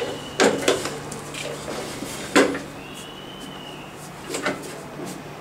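Hollow plastic knocks and clatters from a child's ride-on toy motorbike being handled: three sharp ones in the first half and two softer ones near the end. A steady low hum runs underneath, and a faint high thin tone sounds briefly twice.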